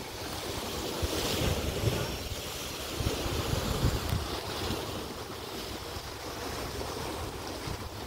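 Sea waves washing against a rocky shore, with wind buffeting the microphone in gusts that are strongest in the first half.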